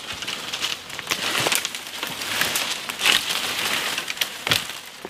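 Freshly cut, leafy hazel limb being pulled back through the surrounding branches and dragged over the leaf litter: rustling leaves and crackling twigs in several swells, with a sharp snap about four and a half seconds in.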